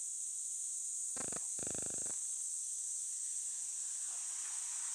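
Tabby cat grooming itself close to the microphone: two short bursts of rapid, even pulses, the second a little longer, about a second and a half in. A steady high-pitched drone of insects runs behind.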